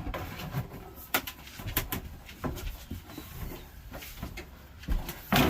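A toolbox being lifted and shifted by hand: scattered knocks and clunks, with sharp ones about one and two seconds in and a louder cluster near the end.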